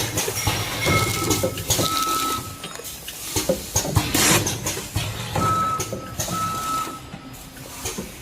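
Vertical measuring-cup packing machine running. Its mechanical clatter repeats in a cycle of about four seconds, with short, high steady tones in each cycle.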